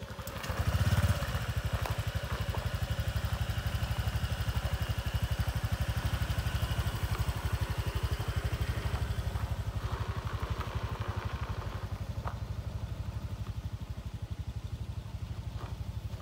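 Small motor scooter engine running steadily at low speed, with a fine, even pulsing low hum.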